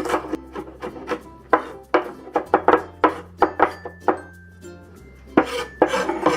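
Kitchen knife mincing garlic on a cutting board: uneven runs of quick chopping strikes, with pauses between them, over background music.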